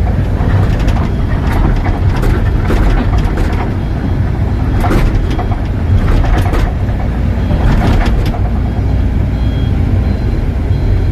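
Excavator's engine running steadily with a low rumble, with several bursts of clanks and knocks from about half a second to eight seconds in.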